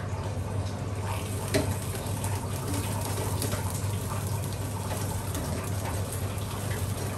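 Pork belly deep-frying in hot oil in an electric deep fryer: a steady bubbling sizzle, with a sharp metal click about a second and a half in as the tongs and fryer basket are handled. A low steady hum runs underneath.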